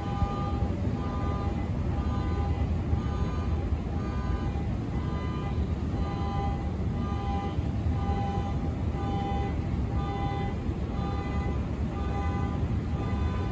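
Subway train running with a steady low rumble, under a short electronic beep that repeats roughly every half second.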